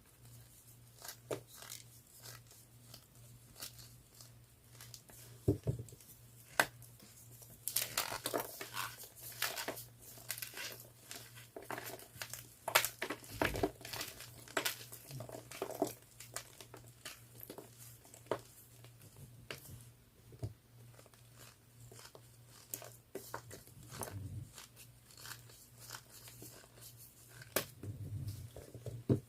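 Fresh blue gym chalk being crunched, with many irregular crisp crackles and crumbles. They come in clusters, thickest about a third of the way in and again around the middle.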